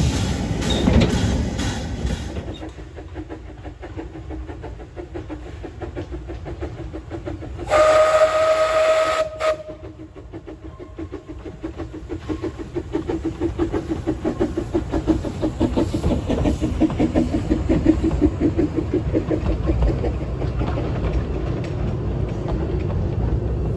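Corris Railway No. 4, a small Kerr Stuart narrow-gauge steam tank locomotive: steam hisses for the first couple of seconds, then one whistle blast about eight seconds in. After that it comes up working steadily, its quick exhaust beat growing louder to a peak as it passes, and its carriages roll by.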